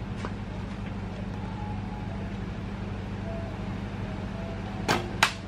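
An arrow shot from a bow: two sharp snaps close together near the end, the string's release and the arrow's impact, over a steady low engine hum.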